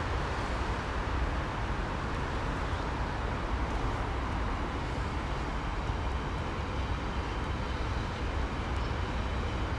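Container flat wagons of a long freight train rolling past, a steady rumble of wheels on the rails.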